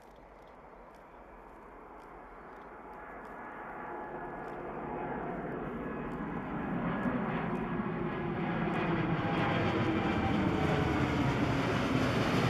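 Boeing 787 Dreamliner's twin turbofan engines at takeoff thrust as the jet climbs out, a steady roar growing louder as it nears.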